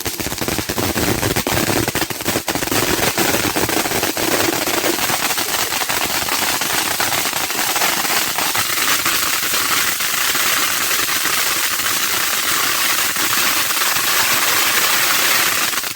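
Vulcão fountain firework spraying sparks, giving a loud, dense crackling hiss full of rapid pops that runs on without a break.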